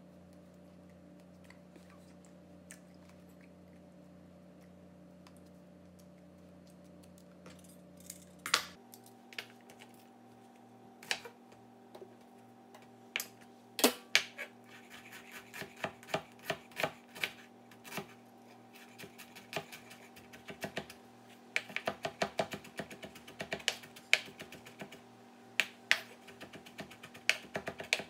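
A chef's knife chopping and mincing fresh ginger on a wooden cutting board, over a steady low hum. The knife strikes start about a third of the way in, come irregularly at first, then turn into quick rapid chopping in the last several seconds.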